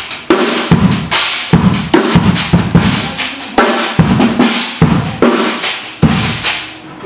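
Drum kit playing a steady beat, bass drum and snare hits about two to three a second.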